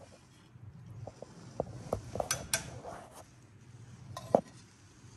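Metal serving spoon and steel ladle clinking and scraping against a stainless pot and a cast iron Dutch oven as rice and soup are dished out: a few scattered clinks, a quick cluster in the middle, and one sharper knock near the end.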